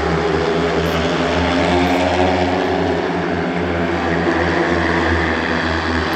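Four speedway motorcycles racing round the track together, their 500 cc single-cylinder methanol engines running hard at high revs in a steady, overlapping drone.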